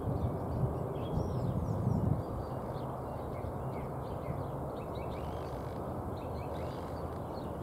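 Small birds chirping and twittering, many short faint calls scattered throughout, over a steady low rumble of background noise.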